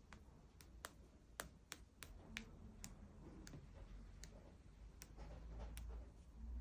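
Near silence with about a dozen faint, irregular clicks over a low hum.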